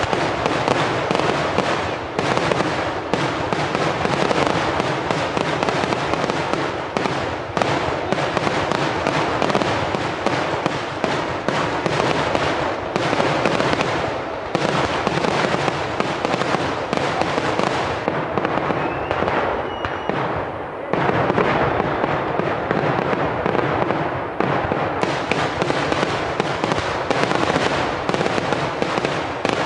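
Fireworks barrage: a continuous, dense run of bangs and crackling explosions from shells and spark fountains set off at ground level. It thins briefly about two-thirds of the way through, then comes back as heavy as before.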